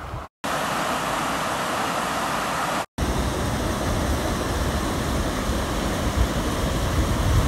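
Steady rushing of water, broken by two brief cuts to silence. From about three seconds in, water churns and splashes in the wake of a boat moving up a river, with wind buffeting the microphone as a deep rumble.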